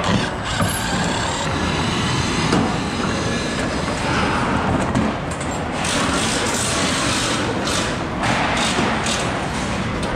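Steady construction-site background noise with a low rumble.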